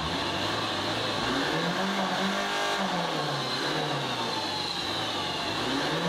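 Mercedes-Benz Vito diesel van's engine revved at standstill: the pitch climbs to a peak about two seconds in, drops back to idle, and starts climbing again near the end.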